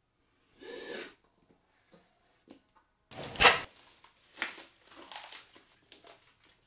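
A man puffing and blowing breath through pursed lips in several short noisy gusts, the loudest about three and a half seconds in, with a deep rumble of breath hitting the microphone.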